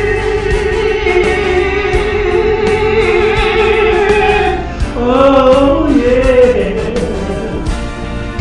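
Singing over a karaoke backing track: one long note held with vibrato for about four and a half seconds, then a short sung run.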